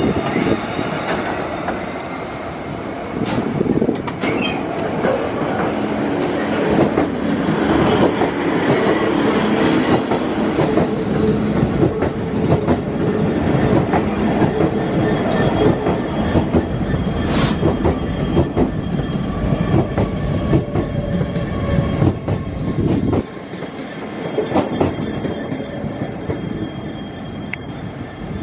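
Freight train hauled by British Rail Class 66 diesel locomotives passing at low speed: diesel engine running, wheels clicking over rail joints, and thin metallic wheel squeals, one sharp and high about two-thirds of the way through. The noise drops noticeably about three-quarters of the way through.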